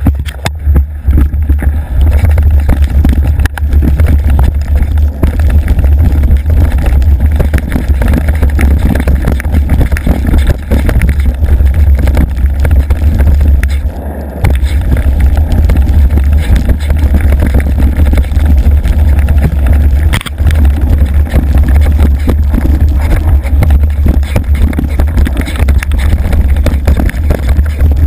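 Loud, distorted wind rumble and rattling trail vibration picked up by a handlebar-mounted GoPro on a mountain bike being ridden downhill, dropping out briefly twice.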